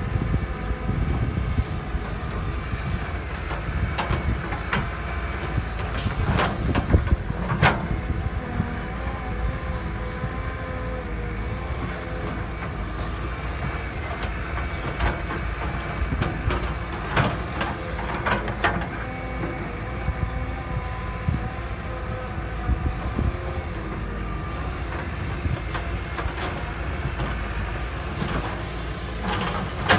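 A heavy machine's engine running steadily, with sharp metallic clanks and knocks now and then, several of them in the first eight seconds and more near the middle and end.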